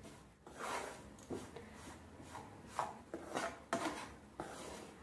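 Steel spoon scraping across a pan as it stirs sorghum flour roasting in ghee, a run of short, irregular scrapes.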